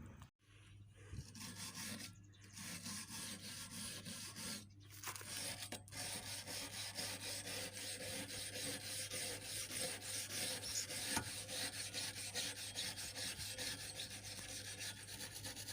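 Brush rubbing back and forth over a steel bash bar, a fast, continuous scratchy sound broken by a few short gaps in the first several seconds.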